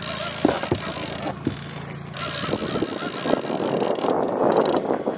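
Small sailboat's outboard motor running with a steady low hum that fades away about two seconds in, under a rising rush of wind and water. A few sharp clicks come early on as a fishing reel is worked.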